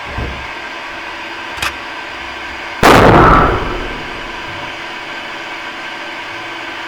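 A single loud rifle shot from a Uberti 1873 Sporting lever-action rifle about three seconds in, fading out over most of a second. A sharp click comes about a second before the shot.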